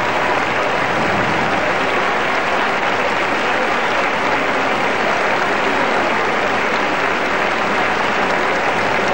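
Large audience applauding steadily, a dense, even clapping that holds at the same level throughout.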